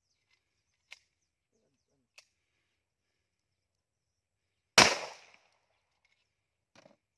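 A single loud pistol shot about two-thirds of the way through, with a short echoing tail. Two faint sharp clicks come before it.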